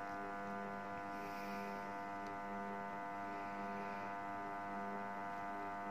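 Compression testing machine running with a steady hum as it loads a mortar prism half at a constant rate of 2.4 kN per second; the load is still rising and the specimen has not yet cracked.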